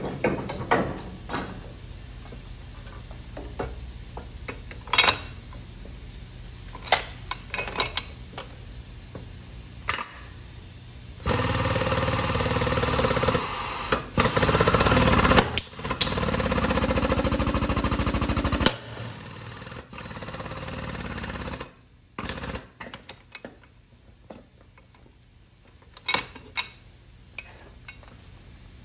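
Pneumatic air hammer rattling against a truck driveshaft yoke to drive out the bearing cup of a rusted universal joint. It runs in long bursts for about seven seconds in the middle. Scattered sharp metal knocks and clinks come before and after.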